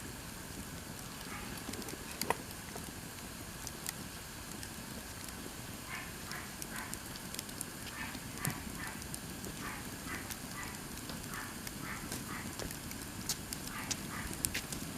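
Wood campfire burning, crackling irregularly with a few sharp pops over a steady low rush of flame.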